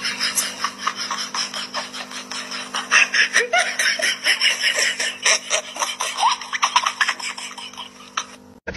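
A cat licking another cat's fur close to the microphone: a quick, irregular run of wet rasping clicks from the tongue, over a faint steady hum.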